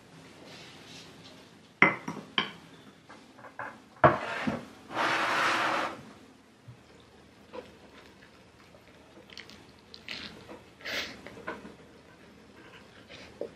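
Ceramic plate and dishes clinking and knocking as a plated sandwich is handled and set down on a wooden tray, with sharp clinks about two seconds in and a knock about four seconds in. A loud scrape lasting about a second follows as the wooden tray slides onto a desk, then a few lighter clicks near the end.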